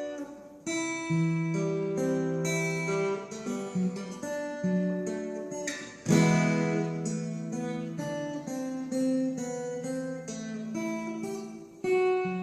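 Solo acoustic guitar playing a slow ballad introduction: picked and strummed chords left to ring, with the loudest strum about six seconds in.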